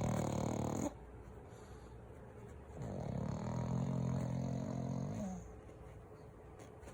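A young pug snoring in its sleep: a low, buzzing snore cuts off about a second in, and after a pause a second snore lasts about two and a half seconds. The snoring is typical of a pug's short, flat muzzle.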